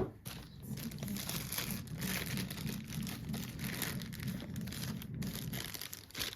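Packaging being handled and unwrapped: crinkling and rustling with scattered tearing sounds, after a sharp click at the start.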